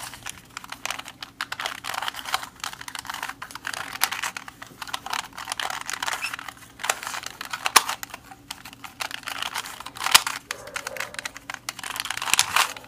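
Dino Barrel twisty puzzle being scrambled by hand: a rapid, irregular run of plastic clicks and clacks as its corner pieces are turned, with a few louder clacks among them. The pieces turn freely without catching.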